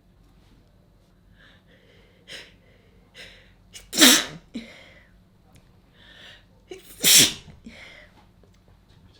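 A person sneezing twice, about three seconds apart, each loud sneeze preceded by a few short catching inhalations.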